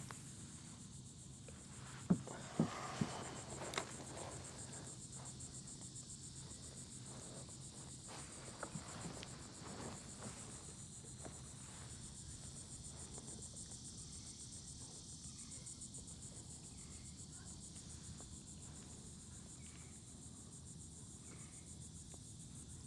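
Faint, steady high-pitched trilling of an insect chorus, with a few sharp clicks about two to four seconds in.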